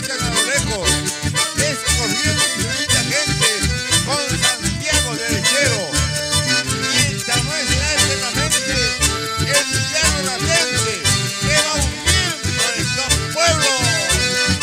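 Live band music led by button accordions and a bandoneon playing the melody over electric bass and a steady pulsing beat.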